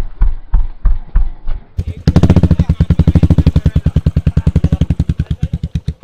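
Motorcycle engine beating out even exhaust thumps, slow at first. About two seconds in it turns to a louder, faster beat that gradually eases off.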